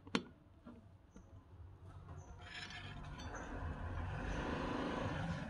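A single sharp metallic click from a screwdriver on a screw, about a quarter second in. Then a rushing noise with a low rumble swells steadily over the last three seconds.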